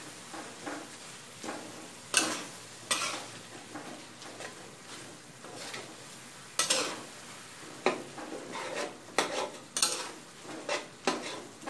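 Metal spatula scraping and knocking against a wok while stirring wild betel leaves and pork belly through boiling curry, with the curry sizzling and bubbling underneath. Sharp scrapes come irregularly, about one a second, from about two seconds in.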